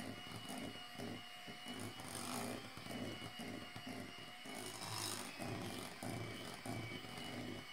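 Electric hand mixer running, its wire beaters churning thick cake batter in a glass bowl. The motor gives a steady whine, with uneven swells as the beaters move through the batter.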